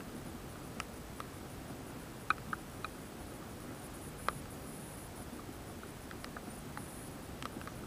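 Scattered raindrops tapping on an action camera's sealed waterproof housing: about a dozen sharp, irregular ticks, the loudest about two and four seconds in, over a faint muffled hiss.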